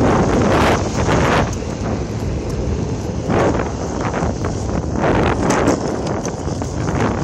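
Longboard wheels rolling on rough asphalt while the board is pumped, with wind buffeting the microphone. The noise swells three times, about a second in, past the middle and a second later.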